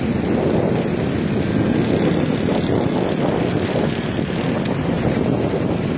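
Motorbike in motion: a steady rush of wind over the microphone mixed with engine and road noise.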